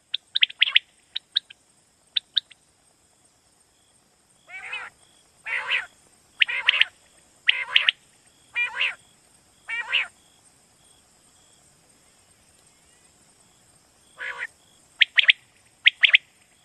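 Common quail calling: a quick run of short clipped calls, then about six fuller calls roughly a second apart, a pause of several seconds, and another quick run of calls near the end.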